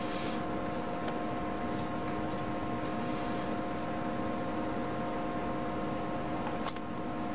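A steady electrical hum with several fixed high tones, broken by a few light clicks, the sharpest near the end: fingertip taps on a tablet's glass touchscreen.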